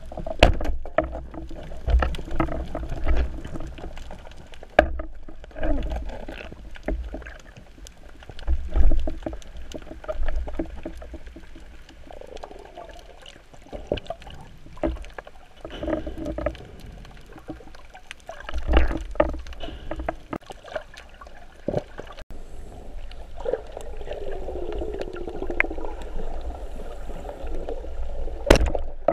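Underwater sound from a camera carried by a swimming freediver: a low, muffled rumble and gurgle of water that swells and fades, with many scattered sharp clicks and knocks.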